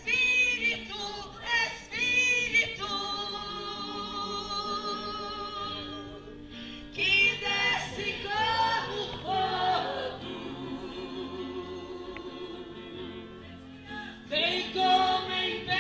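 Worship music with singing: long held sung notes with vibrato over steady sustained chords, swelling in louder phrases near the start, midway and near the end.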